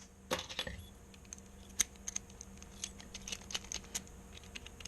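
Light metallic clicking and clinking of lock picks against a small four-pin Chicago cabinet lock as it is handled: a scattering of quick, irregular ticks, one sharper clink a little under two seconds in.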